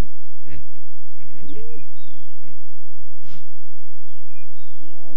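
Hippos grunting and honking from a weed-covered waterhole in repeated low calls that bend up and down in pitch, with birds whistling short high notes over them. A short rush of noise comes a little after three seconds in.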